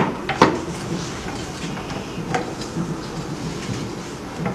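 Silicone cover being pressed by hand into the plate of a 3D sublimation heat press: two sharp knocks in the first half second, then light scattered taps and rubbing over a steady low background noise.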